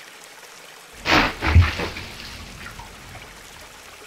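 Animated garden fountain water trickling steadily. About a second in comes a loud, low, throaty sound lasting under a second, which trails off.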